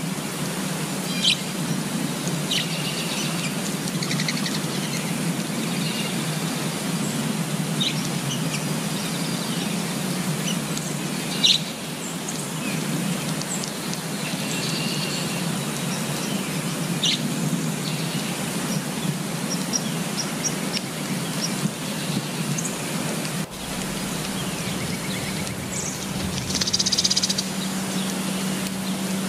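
Steady rain falling on leaves, with birds chirping in short, scattered calls throughout.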